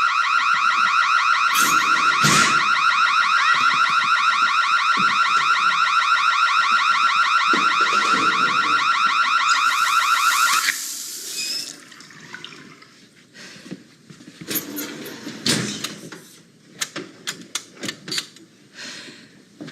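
Fire alarm shrilling in a loud, rapid pulsing tone, which cuts off suddenly about ten seconds in. Scattered clicks and knocks follow.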